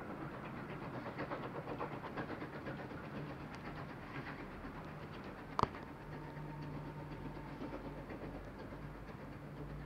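Distant steam train running along the line, its wheels clattering faintly over the rail joints. A single sharp knock a little past halfway, followed by a faint thin steady tone for a couple of seconds.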